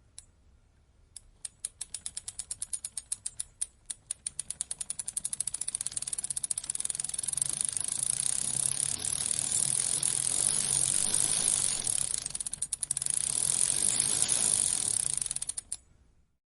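Bicycle chain running over its gears with a ratchet-like clicking. Slow separate ticks speed up into a fast, steady run of clicks, ease briefly about three-quarters of the way through, then stop near the end.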